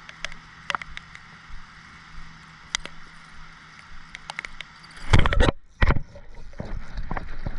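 Steady rain hiss with scattered sharp ticks. About five seconds in come two loud, short rushes of sound as a largemouth bass hits a chatterbait and is hooked, and the noise then builds as the fish is fought.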